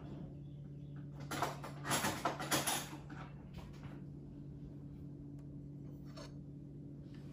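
Rustling and clicking from handling, bunched about one and a half to three seconds in, over a steady low hum.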